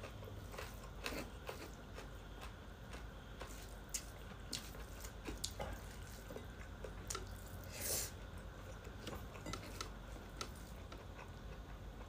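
Someone eating pork intestine curry close to the microphone: chewing, with scattered small clicks and a brief swish about eight seconds in.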